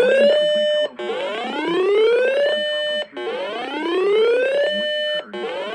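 Electronic alarm siren sounding a repeating rising whoop: each buzzy tone climbs in pitch, holds level briefly, then cuts off and starts again about every two seconds, about three times.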